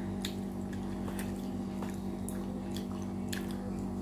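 Close-up chewing of an aloo pakoda (fried potato fritter), with scattered short crunchy, wet mouth clicks over a steady low hum.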